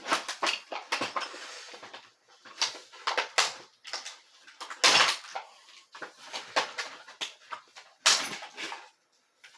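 Doorknob and deadbolt set's packaging being handled and opened: an irregular run of rustles, scrapes and knocks.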